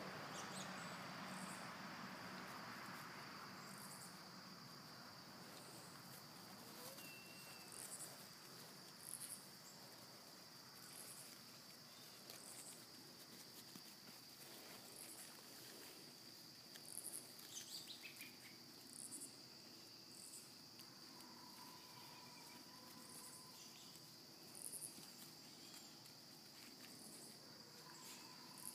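Faint insect chorus: a steady high-pitched drone with short chirps every second or two. A distant engine hum fades out over the first few seconds.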